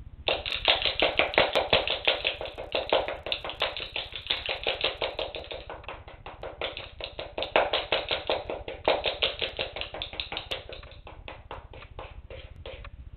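Wooden spoon beating cake mixture, making a fast, rhythmic clacking like castanets, several clacks a second. It comes in two louder spells and gets softer near the end.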